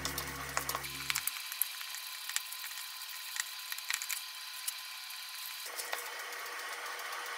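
Hands kneading raw minced meat in a stainless steel bowl: scattered soft, sticky clicks at an uneven pace over a faint hiss. A low steady hum cuts off about a second in.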